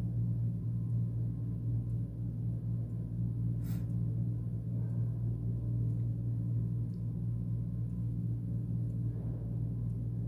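Steady low hum, with one short click about three and a half seconds in.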